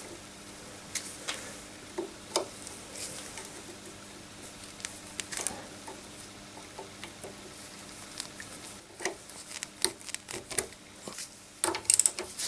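Pliers pulling a split pin from a castellated nut on a car's front suspension pivot: faint, scattered small metallic clicks and scrapes. Near the end, a quick cluster of sharper clicks as a socket goes onto the nut.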